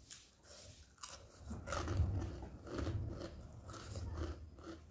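A person chewing crunchy food with chopsticks-fed mouthfuls: repeated crisp crunches and chewing, with a few sharper crunches about a second in and again near the end.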